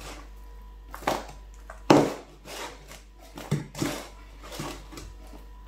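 Sliced ripe plantain being turned and tossed by hand in a bowl to coat it with salt: a series of irregular short rustles and soft knocks.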